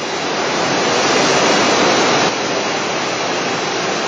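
Steady rushing din of a busy exhibition hall, with no clear voices or tones in it; it drops slightly in level a little over two seconds in.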